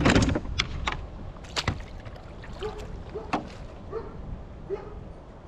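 Handling noises on a plastic sit-on-top kayak: a loud rustling swell at the start, then scattered sharp knocks and clicks on the hull, with a few short faint squeaks.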